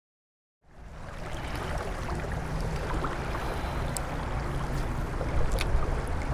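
Steady rush of flowing creek water with a low rumble, fading in from silence just under a second in, with a couple of faint clicks.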